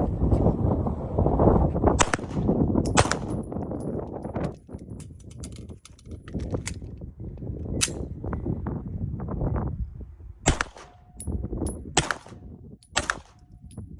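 Pistol firing a string of shots at uneven spacing, some in quick pairs. Heavy rumbling movement noise runs under the first few shots, then the shots stand out against quieter gaps.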